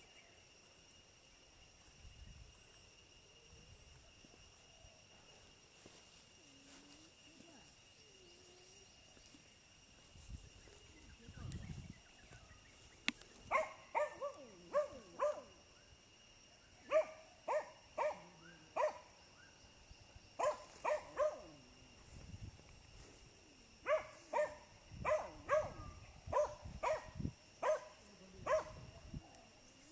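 A dog barking in quick runs of short, sharp barks, starting about halfway through and repeating in clusters to the end. A steady high-pitched whine sits underneath.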